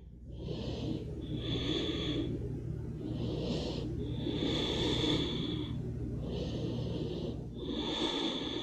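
A woman's audible breathing, about three slow breaths in and out, while she holds a prone back-bending yoga pose with her feet lifted.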